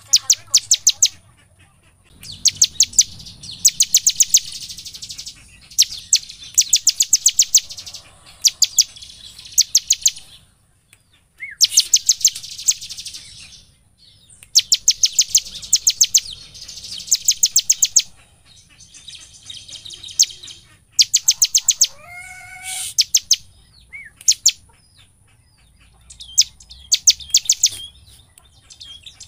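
Bar-winged prinia (ciblek) singing hard: bursts of very fast, high, dry chipping notes, each about a second long, repeated again and again with short pauses. A lower, wavering call about two-thirds through.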